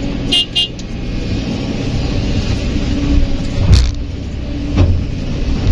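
Kobelco SK200 excavator's diesel engine running steadily under hydraulic load as the arm swings and digs. A loud sharp knock a little under four seconds in as the bucket strikes the rocky ground, and a lighter knock about a second later.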